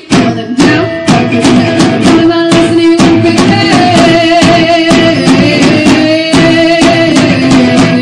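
Instrumental passage of a song: held notes over a steady drum beat, with no vocals.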